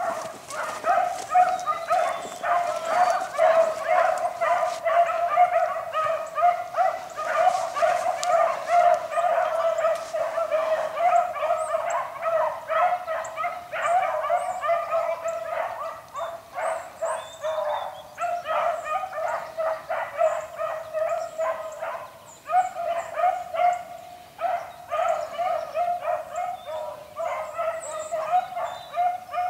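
Pack of beagles baying in full cry as they run a rabbit, many voices overlapping almost without a break.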